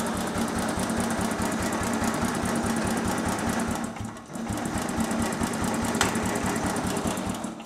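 Electric starter motor cranking the lawn tractor's small engine over in an even, rapid chug. It breaks off briefly about four seconds in, cranks again, then stops suddenly at the end.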